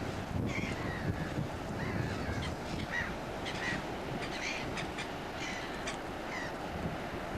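Gulls calling again and again in short, harsh cries, over low wind rumble on the microphone.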